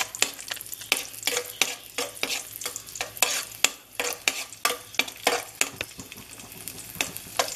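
A spoon scraping and knocking irregularly against a pan, several times a second, as raisins are stirred in hot ghee, over a steady sizzle of frying. The raisins are being fried until they swell.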